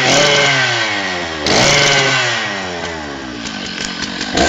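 Two-stroke chainsaw engine being revved in bursts: its pitch jumps up about 1.5 s in and again near the end, and falls back after each rev.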